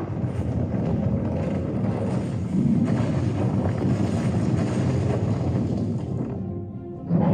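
A steady, loud low rumbling noise that dips briefly near the end.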